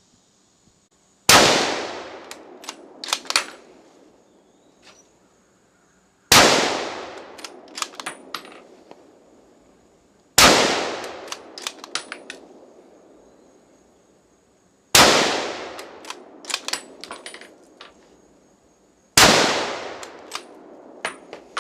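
Five shots from a Remington 700 bolt-action rifle in .270 Winchester, spaced about four to five seconds apart. Each shot is followed a second or two later by a few sharp clicks of the bolt being worked.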